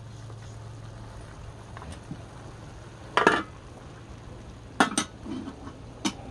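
Metal spoon stirring chicken browning in a caldero, knocking and clinking against the pot a few times: one pair of knocks about three seconds in, two more near five seconds and one just after six.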